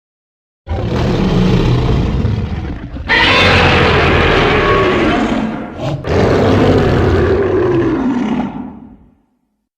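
Godzilla-style monster roar sound effect, spliced from Godzilla film roars. A lower opening growl is followed by two long, loud roars, each falling in pitch toward its end, and the sound fades out near the end.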